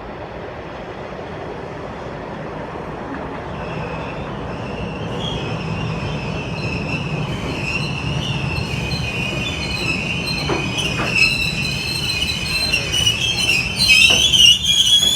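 Orange Line subway train pulling into the station: a low rumble grows steadily louder, and high metallic wheel squeal sets in about a third of the way through, loudest near the end.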